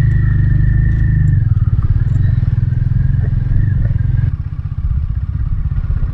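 Royal Enfield Himalayan 450's single-cylinder engine running as the bike is ridden, a steady low pulsing that drops a little in level about four seconds in.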